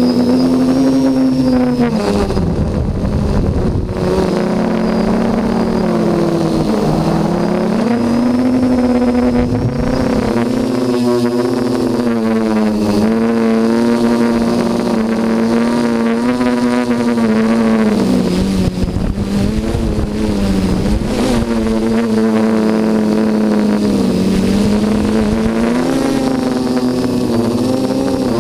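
Quadcopter's electric motors and propellers buzzing loudly in flight, heard from the onboard camera. The pitch dips and rises again several times as the throttle changes.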